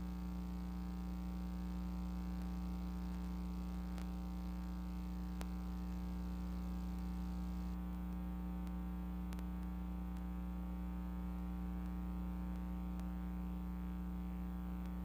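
Steady electrical mains hum and buzz on an audio line carrying no programme, with a few faint ticks.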